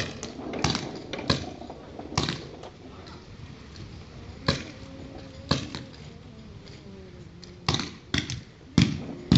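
Paintball markers firing single shots: about eight sharp pops at uneven intervals, with faint voices in the background.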